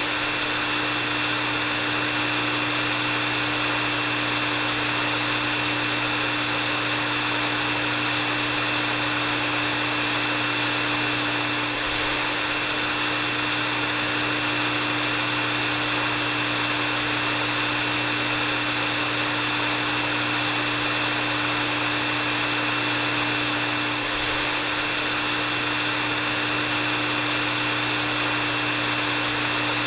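Hair dryer running steadily: an even rush of blown air with a steady motor hum underneath and a thin high whine.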